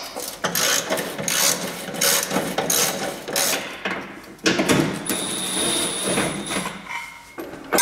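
A ratchet wrench clicking in quick runs as drive shaft bolts are undone. About halfway through, a small power tool runs steadily with a high whine for about two seconds.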